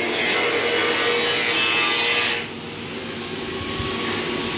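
Motor-driven machinery of an automatic rice-husk furnace running: a steady whirring hiss over a constant hum. The high hiss drops away abruptly about two and a half seconds in.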